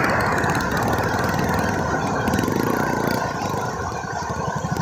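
Small motorcycle engine idling with an even, rapid putter as the bike comes to a stop.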